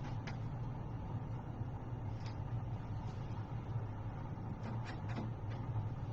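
Steady low hum in the room, with a few faint clicks and light knocks as bicycle parts are handled during assembly.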